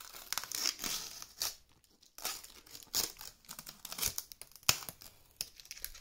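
Plastic wrapping crinkling and tearing as it is pulled off a graphics card, in irregular crackles and rips with brief pauses and one sharp snap late on.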